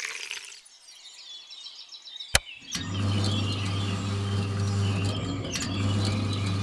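A sharp click, then a small electric motor starts about two and a half seconds in and runs with a steady low hum, driving a miniature soda-can concrete mixer. Faint bird chirps before it starts.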